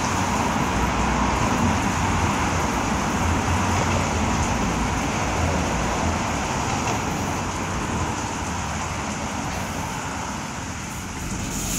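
Washworld High Velocity touchless car wash running in the bay: a steady noise of its pumps, spray and gantry machinery, with a low rumble underneath.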